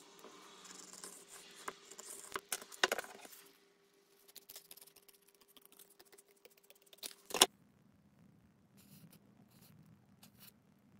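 A pencil scratching along paper as a knife blade's outline is traced, then scissors snipping through the paper in quick small cuts. Sharp clicks of the tools being handled come about three seconds in and, loudest, about seven seconds in.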